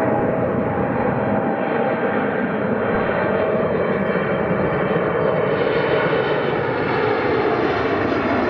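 Four GEnx-2B jet engines of a Boeing 747-8F freighter on landing approach with gear down: a loud, steady rush of jet noise with a faint whining tone that slides slightly lower in pitch over the last few seconds as the aircraft draws closer.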